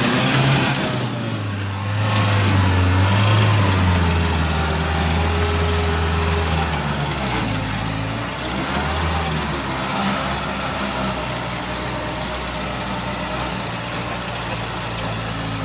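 Off-road vehicle's turbodiesel engine running, its pitch rising and falling as the revs change, with a steady high whine throughout.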